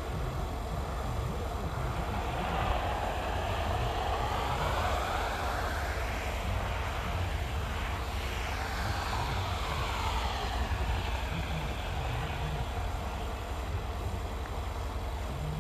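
An airplane flying over, growing louder to a peak about halfway through and then fading, over a steady low rumble.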